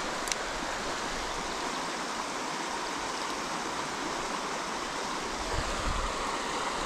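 Jordan River water rushing steadily past, with a few low thuds near the end.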